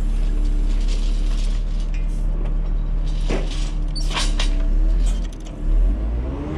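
Knuckle-boom crane truck running, its engine and hydraulics working the crane to pull a heavy load of scrap. A few sharp metal knocks come about three and four seconds in, and a rising whine comes near the end.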